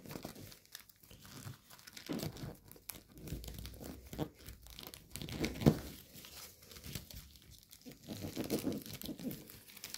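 Gold foil origami paper crinkling and crackling as it is folded and pressed between the fingers, in irregular rustles with one louder crackle about halfway through.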